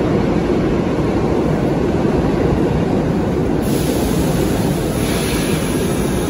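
Steady low rumble of a New York City subway train in an underground station. A high hiss of air comes in about three and a half seconds in.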